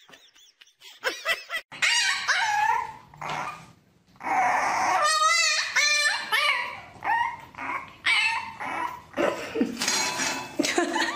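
French bulldog puppy whining and yipping in a string of short, high, wavering cries.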